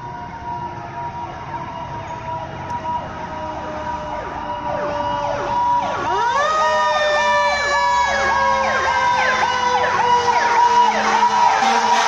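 Federal Signal STH-10 fire siren sounding a slowly falling tone as it winds down, joined about halfway by a fire truck's electronic siren yelping in rapid up-and-down sweeps that grow louder as the truck approaches.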